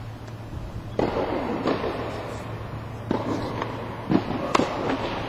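Tennis ball struck by rackets and bouncing on the court during a rally: a string of about six sharp pops, starting about a second in.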